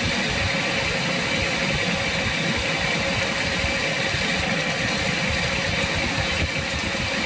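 Metal lathe running steadily under power, with a constant tone over the machine noise, while a boring bar cuts inside the bore of a spinning gear blank.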